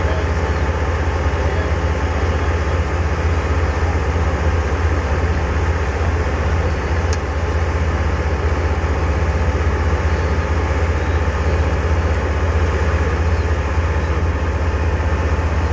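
The Nexter Caesar 8x8 self-propelled howitzer's truck engine idling with a steady, deep drone.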